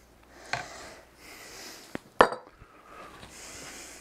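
A serving utensil clinking against the cooking pot and a bowl as chowder is dished up: a few sharp knocks, the loudest a little after two seconds in.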